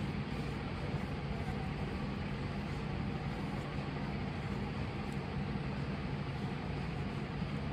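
Steady low rumble and hiss of background noise with a low hum, unchanging throughout.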